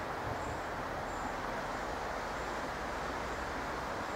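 A DART electric commuter train approaching in the distance: a low rumble coming in about a second in, under a steady even outdoor hiss.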